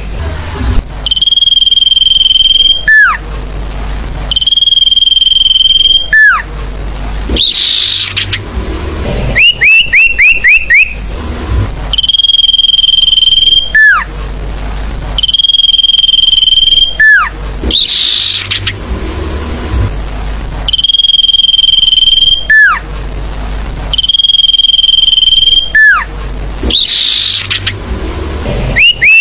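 Sirfu lure call played as a loop: a loud, high, level whistle held for about two seconds and ending in a quick downward slur, given twice in a row, then a short raspy burst and a rapid string of four or five rising chirps. The sequence repeats about every nine seconds.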